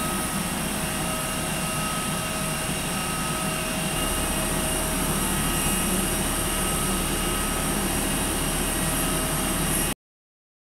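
Steady jet aircraft engine noise on an airport ramp: a high whine with a few steady tones over a low rumble. It shifts slightly about four seconds in and cuts off abruptly near the end.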